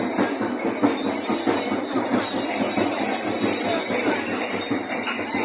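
Bells jingling over a dense, steady din.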